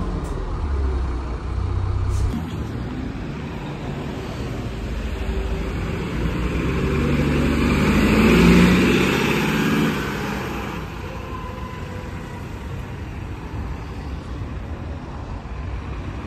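A double-decker bus engine hums for the first two seconds, then a bus pulls away close by, its engine growing loudest about eight to ten seconds in before fading. Quieter road traffic noise follows.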